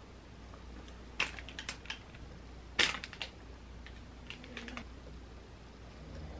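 Groceries being handled and set down on a table: a few sharp clicks and taps of plastic packaging, the loudest near the middle, with light crinkling of a plastic bag.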